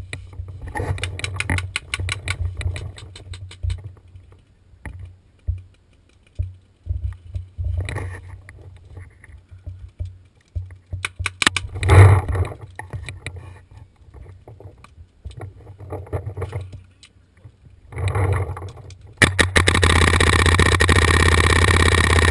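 Irregular knocks, scrapes and rustles of gear and camera against rock as a paintball player crawls through a boulder crevice, with a sharp loud knock about twelve seconds in. A loud steady rushing noise starts suddenly near the end.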